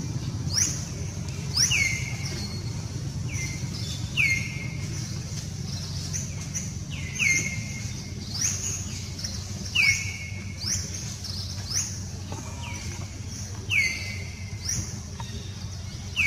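A bird calling over and over, roughly once a second or a little slower. Each call is a quick rising sweep followed by a falling note, with a steady low hum underneath.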